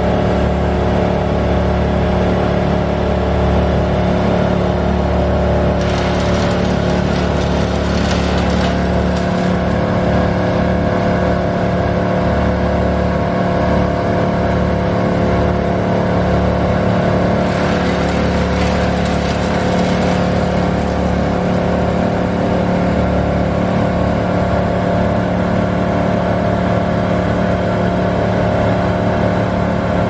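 Heavy engine running steadily at a constant speed, with two stretches of hissing noise a few seconds long: one about six seconds in and one past halfway.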